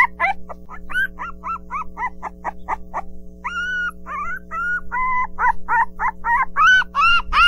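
Puppies whimpering and yipping: many short, high-pitched cries in quick succession, with a few longer whines a few seconds in, over a steady low hum.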